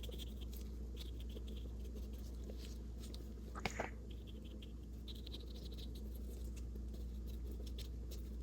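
Acrylic paintbrush tapping and dabbing on mixed media paper: scattered soft taps and scratches, with a couple of louder taps a little under four seconds in, over a steady low hum.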